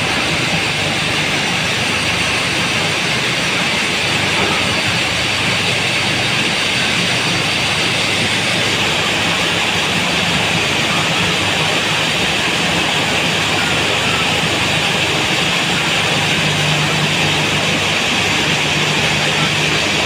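Steady din of a crowded broiler house: thousands of broiler chickens chirping and clucking together, with ventilation fans running underneath.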